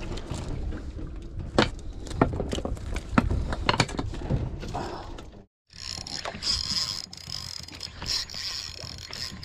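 Irregular knocks and clicks of gear being handled. After a short break, a Penn Battle II 3000 spinning reel is cranked, giving a steady whirring with fast clicking through the second half.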